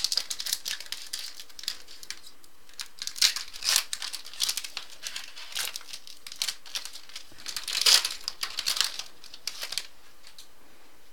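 Trading-card pack wrapper being torn open and crinkled in the hands, in irregular crackling bursts that are loudest about eight seconds in and stop about ten seconds in.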